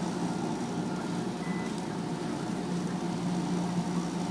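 Steady low hum of laundromat washers and dryers running, with one short electronic beep from the machine's card reader about a second and a half in as a payment card goes in.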